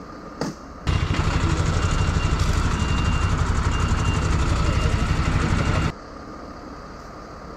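Fire truck's diesel engine running close by: a loud, steady, pulsing low rumble that starts abruptly about a second in and cuts off abruptly about five seconds later.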